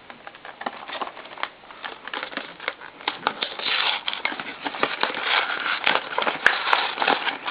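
Toy packaging being handled and opened: plastic and cardboard crinkling and crackling, with many small clicks, busier in the second half.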